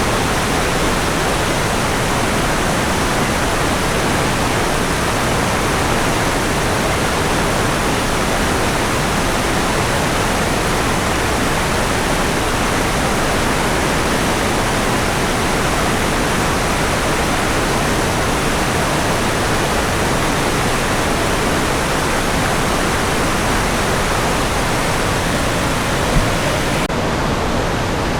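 Mountain stream rushing, a loud, steady wash of water noise with a brief click near the end.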